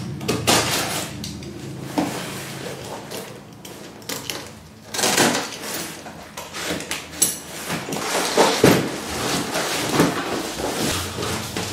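Cardboard shipping box being cut open and unpacked: a blade slitting the packing tape, then the cardboard and flaps scraping and rustling as they are pulled open, in irregular bursts.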